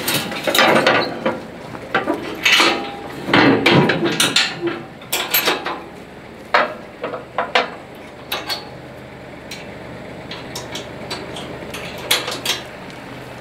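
Metal clanking and ratcheting clicks of chains and a ratchet load binder being worked, with dense knocks over the first few seconds and then sparser ones. A faint steady low hum comes in about halfway through.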